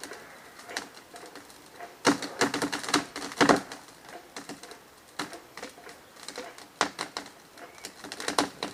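Wood fibres in an oak's hinge cracking and snapping in two irregular bursts of crackles as the tree is winched over, a sign that the hinge is tearing as the trunk leans.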